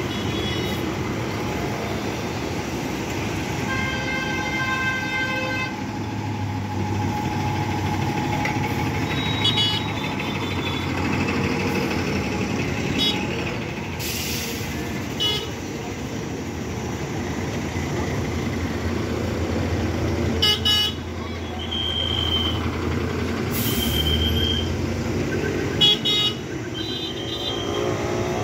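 Buses' engines running as they drive past slowly in a line, with a honk of a horn about four seconds in. Several short high-pitched beeps come near the end.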